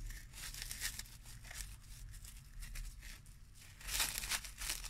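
Plastic cling film crinkling as it is wrapped around a potato and twisted at the ends, with a louder rustle about four seconds in.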